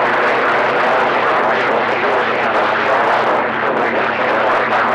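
CB radio receiver on channel 28 (27.285 MHz) putting out steady static hiss with a faint low hum beneath it, with no transmission coming through.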